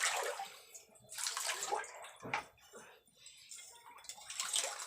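Water splashing and sloshing in irregular bursts during a catfish pond harvest, loudest at the start and building again near the end.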